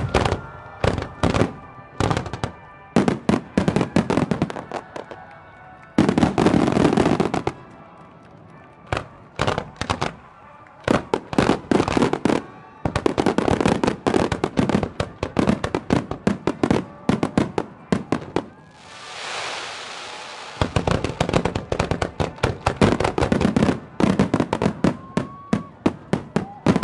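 Fireworks finale barrage: many shells bursting in quick succession, several sharp bangs a second, with a packed run of continuous bangs a few seconds in. About two-thirds through the bangs give way to a couple of seconds of swelling hiss before the barrage resumes. Music plays underneath.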